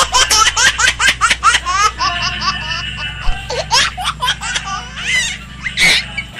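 High-pitched laughter in rapid repeated bursts, each rising in pitch, coming in fits with short pauses between them. Under it runs a steady low hum that cuts off just before the end.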